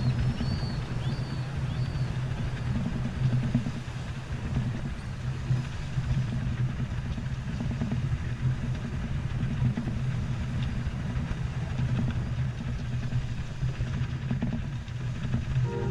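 Wind buffeting the deck-mounted camera's microphone on a sailboat heeled under sail, over the rushing of the bow wave along the hull. The noise is steady and rough throughout.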